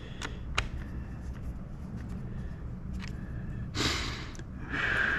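A few small clicks from handling the joystick's plastic parts, then a man breathing hard: a sharp exhale just under four seconds in and a longer sighing breath near the end.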